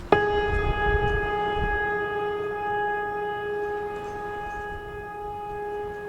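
A single long, steady horn-like tone that starts abruptly and holds one pitch throughout, over a low rumble.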